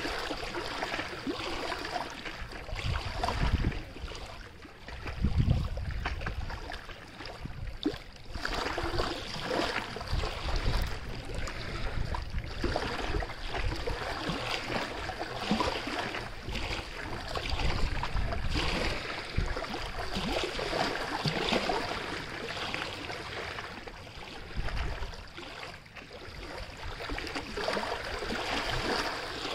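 Running water, an uneven rushing that swells and eases, with occasional low rumbles of wind on the microphone.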